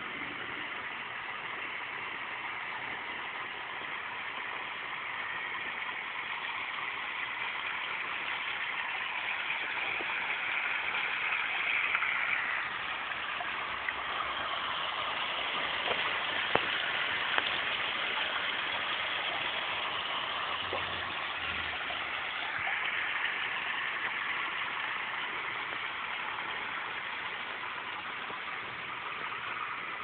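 A sheet of water pouring from a spillway in a stone wall and splashing onto a bed of river rocks: a steady rushing and splashing, a little louder in the middle, with a couple of sharp clicks partway through.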